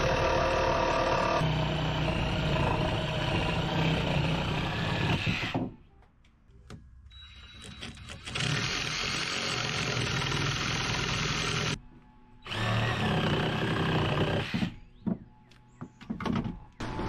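Circular saw cutting off the end of a reclaimed timber beam, in three runs: a long cut of about five seconds, then two shorter ones a few seconds apart, with quieter pauses between.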